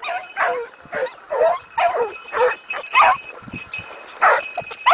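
Hunting dogs barking over and over, roughly two barks a second, with a brief pause shortly before the end, while on a rabbit's trail.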